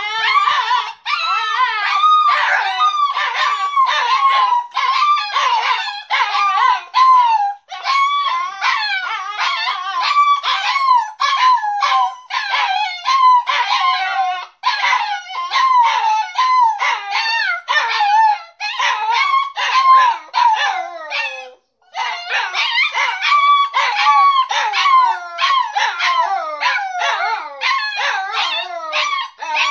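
Puppies whining and crying in a long, nearly unbroken run of high, wavering calls: pleading cries for attention. Short breaks come about eight and twenty-two seconds in.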